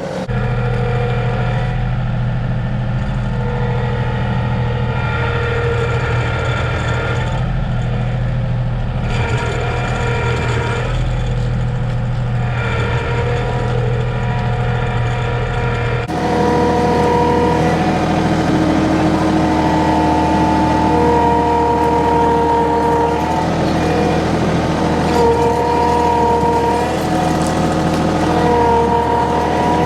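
John Deere 2032R compact tractor's three-cylinder diesel engine running hard under load as it pulls on a chained tree. About halfway through, the engine note changes abruptly and gets louder, with a stronger higher-pitched drone.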